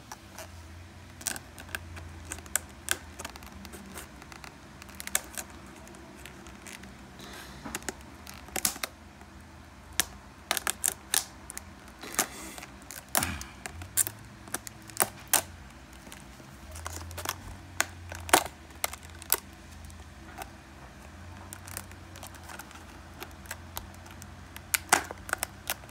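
Stiff clear plastic blister packaging of a dimmer switch being handled and pried at, giving irregular sharp clicks and crackles.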